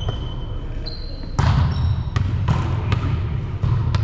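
Volleyball play on a hardwood gym court: several sharp hits of the ball, the loudest about a second and a half in, with short high sneaker squeaks on the floor and a steady low rumble underneath.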